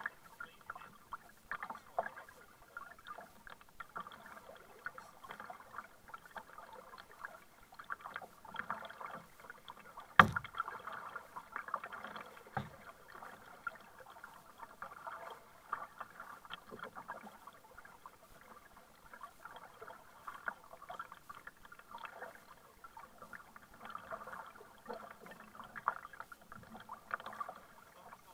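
Kayak paddle strokes: the blades dipping and splashing, with water dripping off them and lapping against the plastic hull. A single sharp knock about ten seconds in is the loudest sound.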